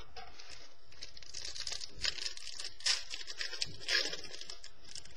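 Trading cards being handled and slid across one another, a crinkly rustle with a few sharper strokes about two, three and four seconds in.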